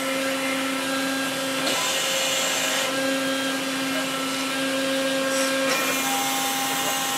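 Gasbarre 30-ton CNC servo-hydraulic powder compaction press running through a pressing cycle: a steady hum and whine from its hydraulic drive, whose tone changes briefly a few times as the press works.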